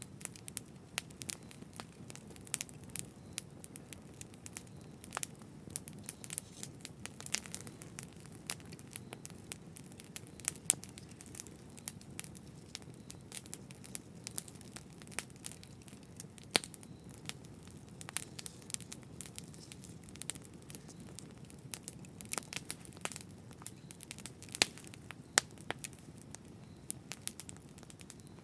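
Campfire crackling: frequent irregular sharp pops and snaps from the burning wood over a low steady rush of the flames.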